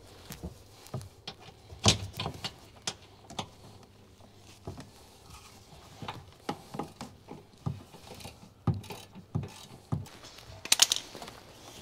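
Hand ratchet wrench clicking in short, irregular strokes, with small metal clinks, while loosening the bolts that hold the rear sway bar bracket. A quick run of clicks comes near the end.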